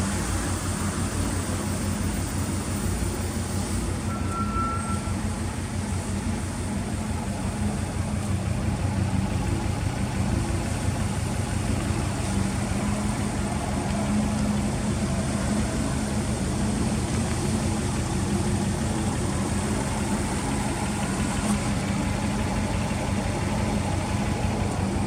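GDB Subaru Impreza's turbocharged flat-four engine idling steadily, heard through an aftermarket Fujitsubo exhaust.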